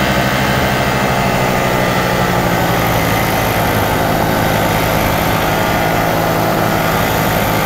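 Paramotor engine and propeller running steadily in cruising flight, at an even, unchanging pitch.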